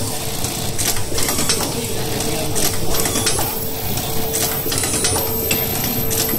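JUKI LK-1903AN button sewer with automatic feeder and button indexer working: short hissing air bursts and clicks from its pneumatic clamp and feed, over a steady hum.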